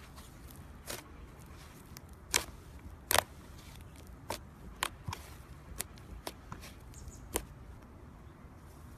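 Slime being worked by hand, giving about ten irregular sharp clicks and pops. The two loudest come about two and three seconds in.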